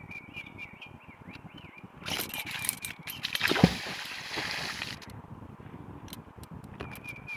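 A magnet-fishing magnet thrown out on its rope: a rushing noise as the rope pays out, then one heavy splash as the magnet hits the river about three and a half seconds in.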